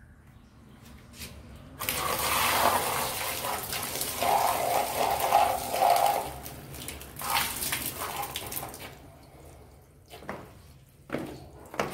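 Water gushing and splashing onto a wire cage trap on concrete. It starts suddenly about two seconds in, dips briefly, then runs on until it stops about nine seconds in. A few sharp knocks follow near the end.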